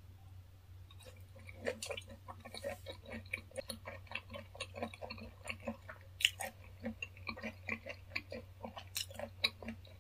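Close-miked chewing of raw fish sashimi: many short, irregular wet mouth clicks and smacks, starting about a second in.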